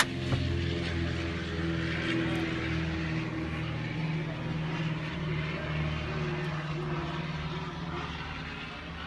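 A steady, low mechanical drone of several held tones under a hiss, with two sharp clicks right at the start.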